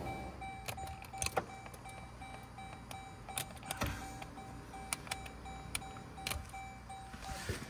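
A 2011 Jeep Grand Cherokee power seat is worked by its side switch: the seat motor runs faintly, with sharp clicks from the switch and seat mechanism. Over it runs a rapid, evenly pulsing electronic warning tone from the vehicle, which stops near the end.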